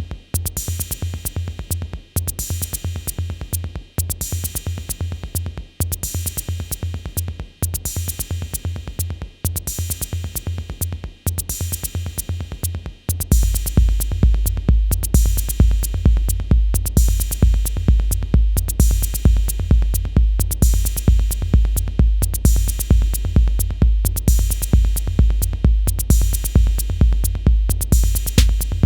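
Roland TR-808 drum machine playing a looped pattern of bass drum, snare and dense hi-hat ticks, repeating about every two seconds. About halfway through, the bass drum turns much louder and deeper, its boom ringing on between beats.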